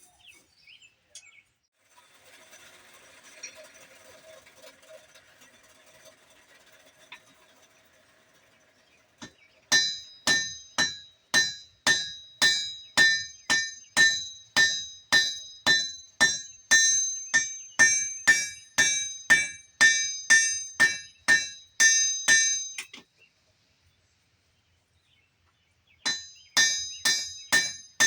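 Hand hammer striking hot spring steel on an anvil: steady blows about two a second, each with a bright metallic ring. The blows stop for about three seconds, then resume a little faster; before the hammering starts there is a faint hiss for several seconds.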